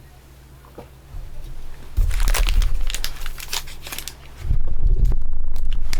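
Foil booster-pack wrappers crinkling and rustling as they are handled, starting about two seconds in, with low knocks of handling close to the microphone.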